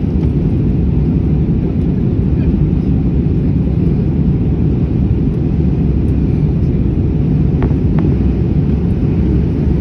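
Steady low rumble of an Airbus A321 in flight: engine and airflow noise, unchanging throughout, with two faint clicks near the end.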